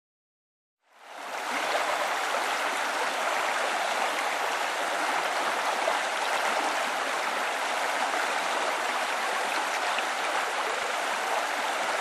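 Water spilling over a low concrete weir into a pool, a steady rushing that fades in about a second in.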